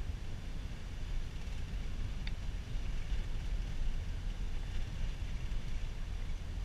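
Steady low rumble of a vehicle driving along a road, heard from inside the cabin: engine and tyre noise. A brief faint high tone comes about two seconds in.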